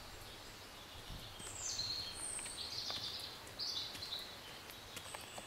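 Songbirds singing in the trees, a few short phrases that run downward in pitch, over a quiet outdoor background. Faint footsteps on a paved path come in near the end.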